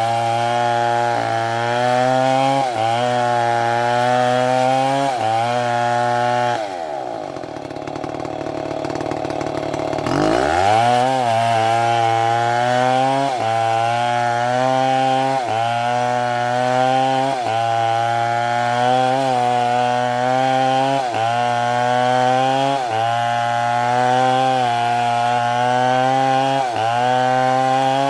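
STIHL two-stroke chainsaw running at high revs while cutting wood, its pitch dipping briefly and recovering about every second and a half as the chain loads in the cut. About seven seconds in, the engine drops back toward idle, then revs up again about three seconds later.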